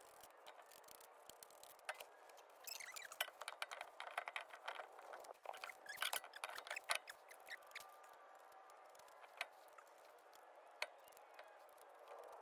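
Faint, irregular clicks and clinks of hand tools being handled during brake work, busiest in the middle, with a couple of single ticks near the end.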